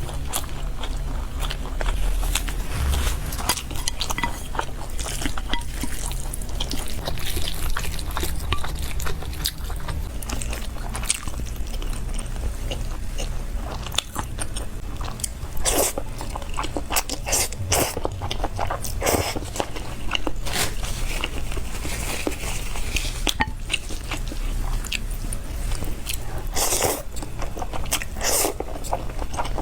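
Close-up chewing with repeated crunches, as of biting into a deep-fried pastry with a crisp shell, over a low steady hum.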